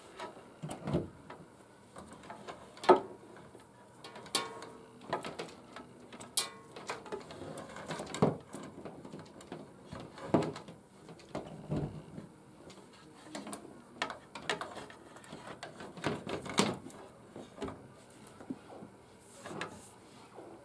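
Hands handling objects at close range: irregular clicks, taps and knocks with some rustling, one or two every second or so.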